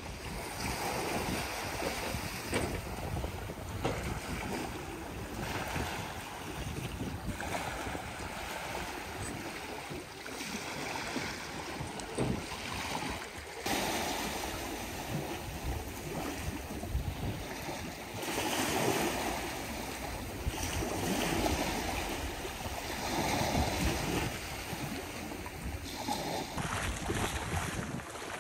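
Sea waves washing in at high tide on a large spring tide, the surf noise surging and easing every few seconds, with wind buffeting the microphone.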